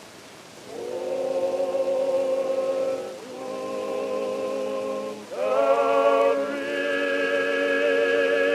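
Slow blues music: a voice holding long wordless notes, three in a row with a slight waver, the third pitched higher, over a faint hiss.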